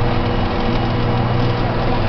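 Deutz-Allis tractor's diesel engine running steadily under load while pulling a plow, heard from inside the cab as an even, low drone.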